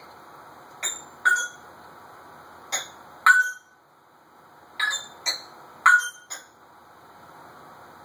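African grey parrot making short, sharp clicks, about eight of them in pairs half a second apart, each with a brief squeaky ring.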